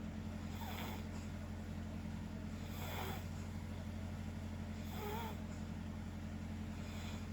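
People snoring in their sleep, a rasping breath about every two seconds, over a steady low hum.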